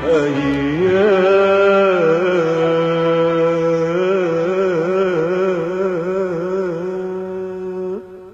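Arabic song's closing phrase: one long held, ornamented note with wavering vibrato over music, fading and cutting off about 8 seconds in.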